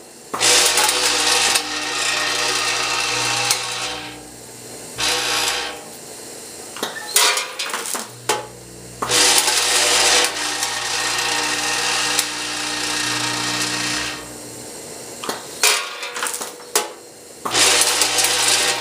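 Vibratory feed pans of an automatic weigh-fill scale system buzzing as wrapped throat drops rattle down them into the weigh hopper, over a steady electric hum. The feed runs for a few seconds at a time, with quieter gaps and sharp clicks between the runs.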